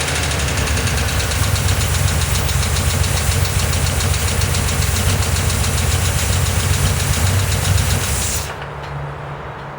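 Porsche 911 2.7S air-cooled flat-six engine running with a loud, fast, even tapping that the owner traces to the bottom end of the engine after a top-end rebuild. The engine sound and its tapping cut off sharply near the end, leaving a low hum.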